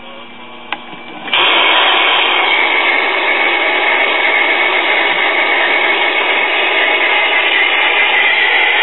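Loud, steady AM radio static and hiss from a Zenith transistor radio tuned to the record player's one-tube AM transmitter. The static switches on suddenly about a second in, just after a small click. The weak carrier is barely coming through.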